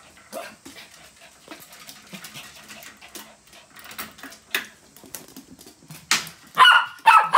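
Small pet dogs excited in a playpen: light scattered taps and clicks, then two or three sharp, high yaps near the end.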